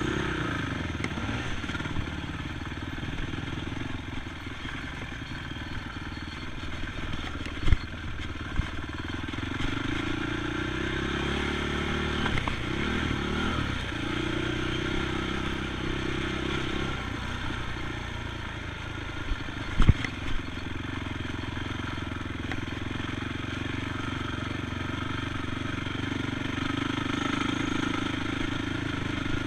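ATV engine running, its pitch rising and falling as the throttle is worked, with a few sharp knocks and clatters around 8 and 20 seconds in.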